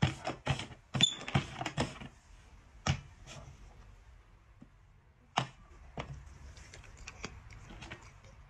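Cups knocked and set down on a hard tabletop board as they are shuffled: a quick run of sharp clicks and knocks in the first two seconds, then a few scattered knocks and small ticks.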